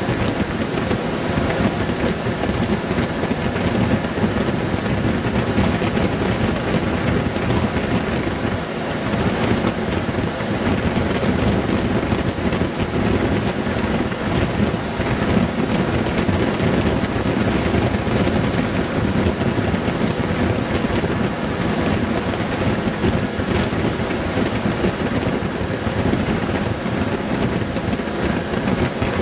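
Steady wind rush over the microphone while a Honda Gold Wing 1800 motorcycle cruises at road speed, its flat-six engine running underneath.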